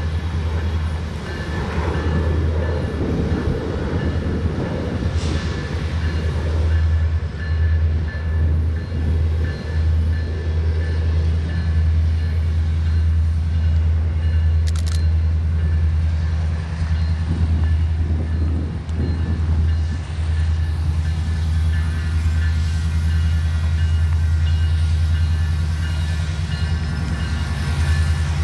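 Union Pacific diesel locomotives approaching at the head of a passenger-car train, giving a steady low engine drone throughout.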